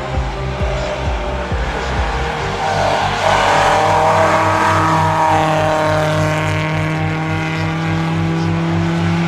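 Lada rally car's four-cylinder engine under power as the car approaches and passes close by, loudest about three to five seconds in, then holding steady revs as it pulls away.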